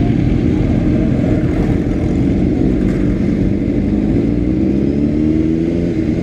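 A 2006 Honda CBR600RR's inline-four engine runs at low revs as the bike rolls slowly. Its pitch rises a little about five seconds in.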